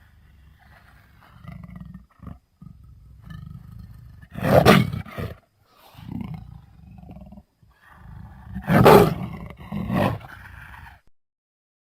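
Creature roar sound effects: low growling rumbles broken by two loud roars, one about four seconds in and one about nine seconds in, dying away shortly before the end.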